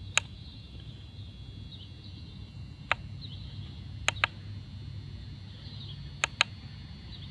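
Sharp push-button clicks on a handheld Zeppin RC lap timer as its results screens are stepped through: a single click at the start, another about three seconds in, then two quick pairs.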